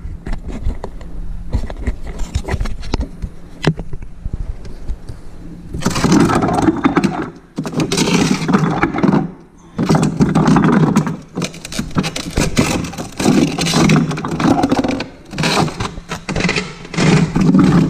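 A hand rummaging through frozen plastic water bottles in a chest freezer compartment, bottles knocking and scraping against each other. Scattered light clicks at first, then loud handling in repeated bursts from about six seconds in.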